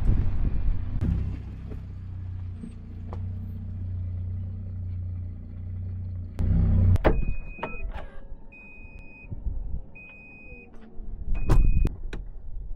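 A vehicle engine running steadily, switched off about seven seconds in with a clunk. It is followed by a repeating high warning chime, four beeps, and a few knocks.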